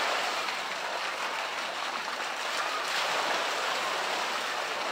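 Polar bear swimming at the surface of a pool, with water splashing and sloshing steadily around its body.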